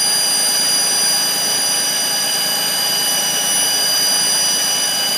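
GM 3400 3.4-litre V6 running with a steady hiss and several high, steady whining tones over it: the strange noise from the right side of the engine that appeared after a head gasket and intake manifold job, which the owner suspects comes from the exhaust pipe.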